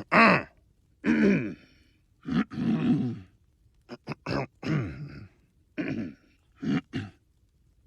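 A cartoon character's voice grunting and groaning in about eight short bursts, each falling in pitch, with brief pauses between them.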